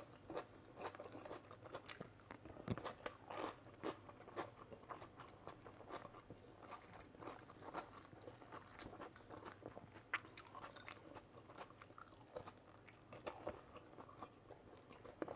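Faint sounds of a person eating: chewing and crunching food, with many small irregular clicks.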